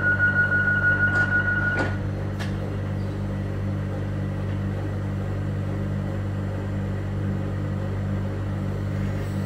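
Renfe electric commuter train's door-closing warning: a steady high beep pulsing about twice a second that stops about two seconds in as the sliding doors shut with a few sharp knocks. Under it, and after it, the standing train's steady electric hum.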